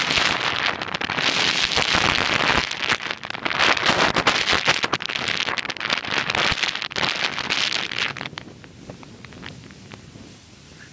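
Wind buffeting the microphone, loud and gusty with crackling, dropping away sharply about eight seconds in.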